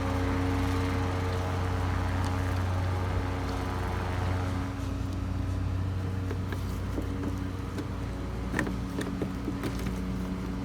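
A vehicle engine idling steadily as a low, even hum, with a few light clicks and taps in the second half from the door handle parts being worked.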